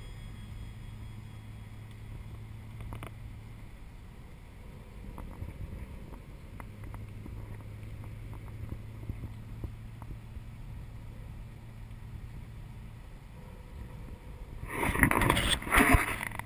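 Nissan GT-R engine and tyre drone heard from inside the cabin while cruising, a steady low hum that eases off briefly twice. Near the end, a loud rustling scrape from the camera being handled and turned around.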